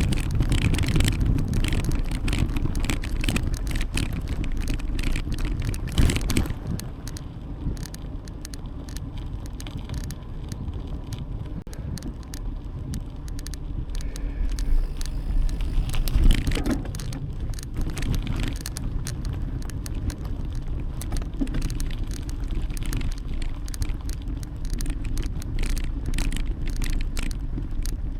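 Bicycle ride heard from a bike-mounted camera: a steady low rumble of wind and tyres on the microphone, with the bike's light rattling and clicking over the path. It is louder in the first few seconds and again swells about sixteen seconds in.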